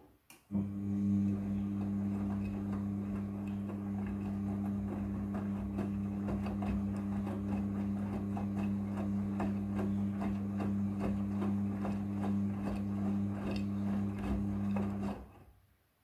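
Midea front-loading washing machine turning its drum in a wash cycle: a steady motor hum with many small clicks and knocks as the wet blanket tumbles. It starts about half a second in and stops suddenly near the end.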